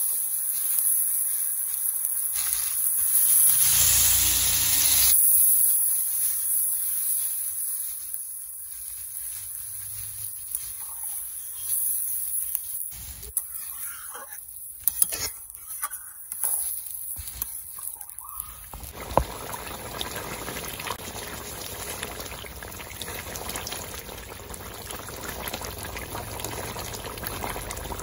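Water poured into a hot kadai of braised meat curry, a loud rush for the first few seconds. A metal ladle knocks against the pan several times in the middle, then the thinned curry comes to a boil with a steady bubbling from a little past the middle to the end.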